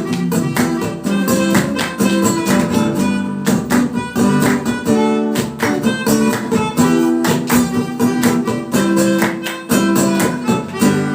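Live rock band playing the instrumental close of a reggae song, with rhythmic guitar chords to the fore.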